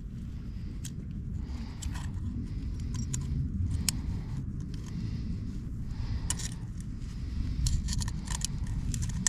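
Wind rumbling on the microphone, with scattered light metallic clicks and rattles from tackle being handled.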